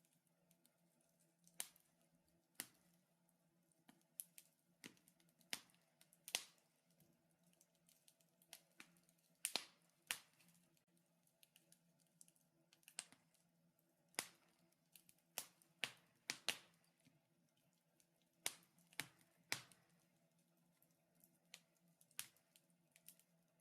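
Wood fire in a fireplace crackling: irregular sharp pops and snaps, a few every couple of seconds, over a faint steady hum.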